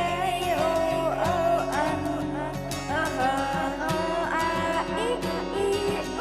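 Background music: a wavering melody over steady low notes, with regular plucked or struck beats.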